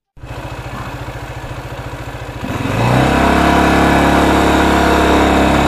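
Vehicle engine running with an even pulse, then revving up about two and a half seconds in and holding steady at a higher speed.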